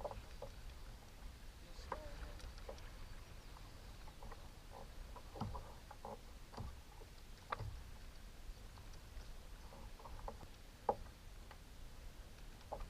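Sounds aboard a fishing kayak on the water: a steady low wash of water against the hull, with scattered light knocks and clicks from gear on the boat.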